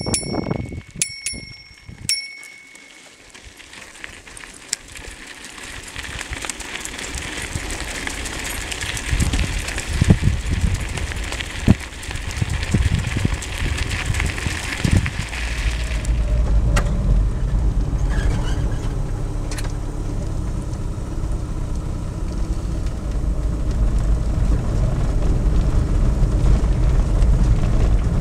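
A bicycle bell rings three times in quick succession, then comes the steady hiss of tyres rolling over a dirt track. About halfway through a deep steady rumble takes over, a vehicle driving on a gravel road.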